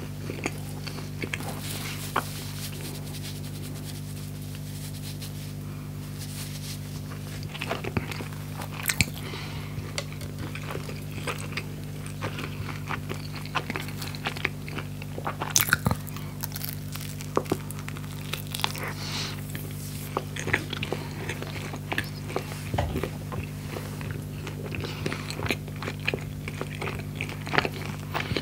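Close-miked bites and chewing of a toasted, grill-pressed skepasti pita filled with fried chicken and French fries: crunching crust and wet chewing clicks, sparse at first and denser from about eight seconds in, with a few louder bites. A steady low hum runs underneath.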